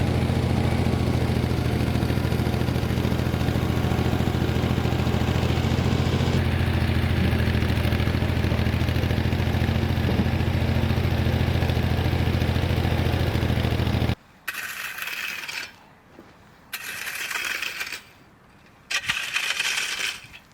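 Ford 4000 tractor engine running steadily, cutting off abruptly about 14 seconds in. Then three short scraping, rattling bursts of gravel being worked.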